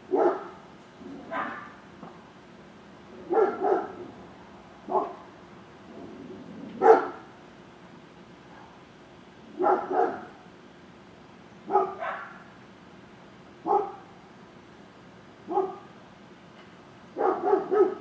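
A dog barking off and on, single and double barks every second or two, with a quick run of barks near the end.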